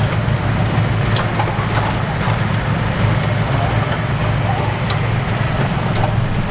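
Steady low machine hum, like an idling engine, under a constant outdoor noise haze.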